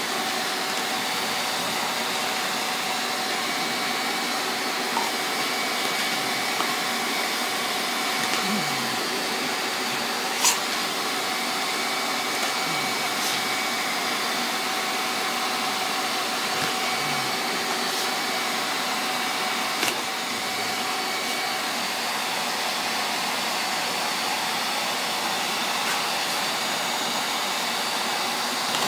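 Shop vac motor running steadily, a continuous rushing noise with a steady whine in it. A few sharp clicks stand out over it, the loudest about ten seconds in.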